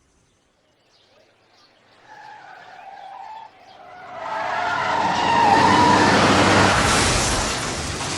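A car's engine and tyre noise builds from faint to loud over a few seconds as it approaches, peaking past the midpoint, after a few faint chirps.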